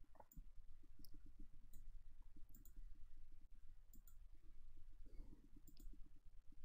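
Faint computer mouse handling and clicking while a shape is traced: a quick run of soft low taps with a few sharp clicks scattered through.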